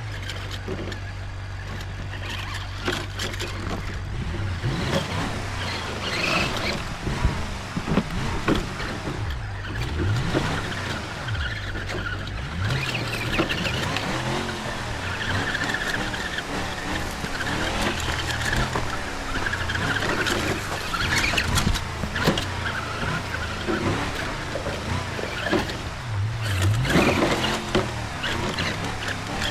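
Simulated truck engine sound effect for an RC scale crawler, idling and revving up and down again and again, with scattered clicks and knocks.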